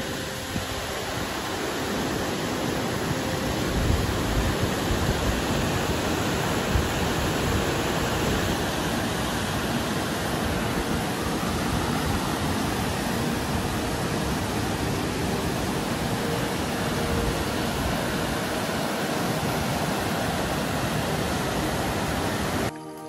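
Mountain river rushing through rocky rapids, a steady dense sound of fast white water.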